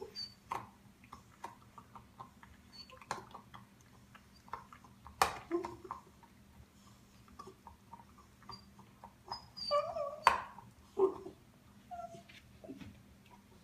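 A puppy chewing, with irregular clicks and gnawing sounds and short squeaky noises in between. A cluster of high squeaks comes about ten seconds in, beside the loudest click.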